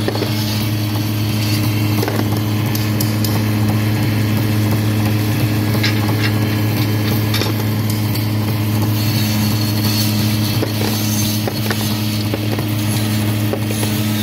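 Electric machine for cutting grooved slate chips, running steadily with a constant motor hum and a gritty cutting noise, with a few brief clicks and scrapes as chips pass through.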